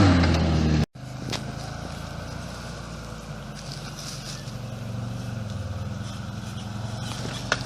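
An off-road 4x4's engine runs loud, then cuts off abruptly a little under a second in. A quieter, steady engine sound follows, with a couple of sharp knocks, one early and one near the end.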